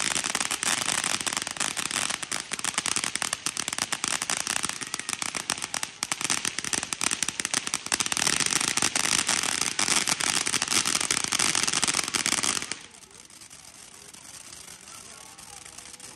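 Fireworks crackling in a fast, dense run of pops for about thirteen seconds, then stopping suddenly.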